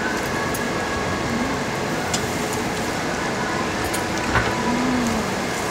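Pork sizzling on a tabletop Korean barbecue grill, a steady sizzle, with a couple of light clicks.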